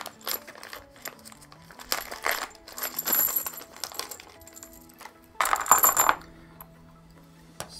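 Small metal screws and standoffs clinking and rattling together in a plastic bag as they are handled and tipped out, in several bursts with bright metallic ringing, the loudest about three and six seconds in.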